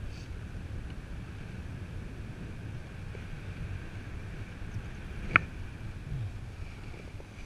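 Wind rushing over a microphone on a paraglider in flight, a steady low buffeting rumble. A single sharp click sounds about five seconds in.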